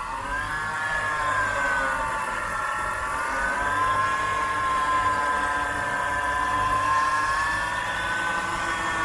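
BMW E46 engine revved with short throttle blips, a high whine riding over the engine and rising and falling with the revs. The whine comes from a failing air-conditioning compressor: it stops once the compressor's belt is taken off.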